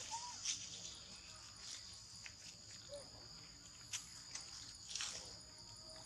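Steady high-pitched drone of insects in the forest, with faint scattered ticks and a couple of short soft chirps.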